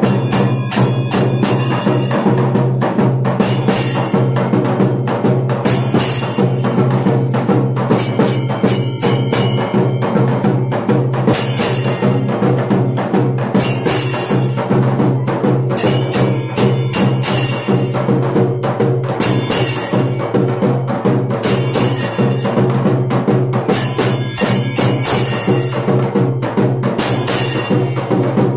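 Kailaya vathiyam temple percussion: large red two-headed barrel drums beaten with sticks in a fast, steady rhythm, with brass hand cymbals clashing along and swelling in ringing bursts about every two seconds.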